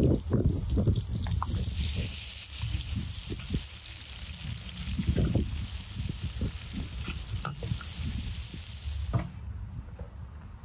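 Food sizzling over a fire: a steady, high sizzling hiss starts about a second in and cuts off suddenly near the end, over irregular low knocks and rumbles.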